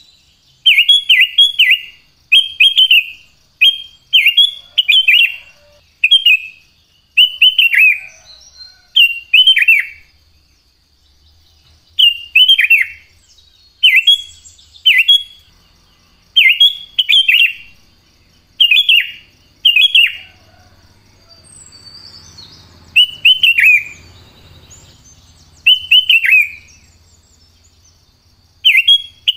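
Sooty-headed bulbul singing: short, loud phrases of two or three quick, descending whistled notes, repeated every second or two, with two brief pauses.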